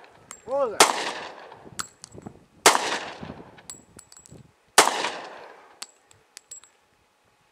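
Handgun fired three times, about two seconds apart, each shot echoing and fading away. Faint sharp ticks are heard between the shots.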